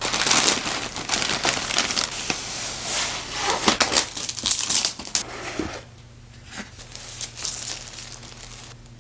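Packaging crinkling and rustling as it is handled and unwrapped, dense for about six seconds and then in a few separate rustles.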